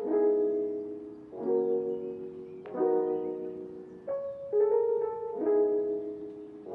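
Background music: gentle piano chords, a new chord struck roughly every second and a half and fading away before the next.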